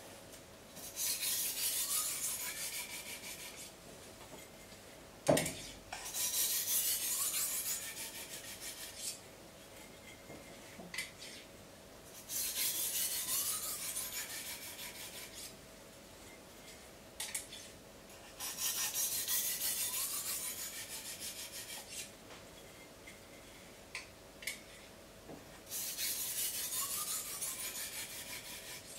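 A 1200-grit sharpening stone rubbed along the edge of a large steel slicing knife, in five stretches of rasping strokes of about two to three seconds each, a few seconds apart: honing the edge finer at the 1200-grit stage. A sharp knock about five seconds in, and a faint steady hum.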